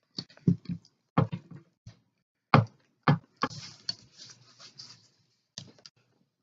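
Series of sharp knocks and clacks from a hand-pumped 10-ton hydraulic crimper being worked on a 3/0 gauge cable lug, followed about halfway through by a couple of seconds of rustling hiss and a final pair of clicks.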